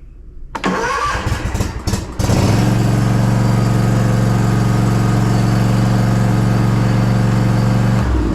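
Simplicity Courier zero-turn mower's Kawasaki engine cranked by the electric starter for about a second and a half, catching and settling into a steady run. The starter now turns the engine over normally on a new battery instead of only clicking. The engine note falls away just before the end.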